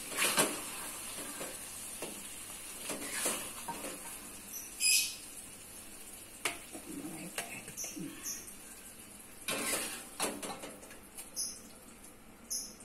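Metal spatula scraping and knocking against an aluminium wok as pieces of chicken in thick sauce are scooped out, a scattered handful of short clicks and scrapes. A few short high chirps come in about the middle and near the end.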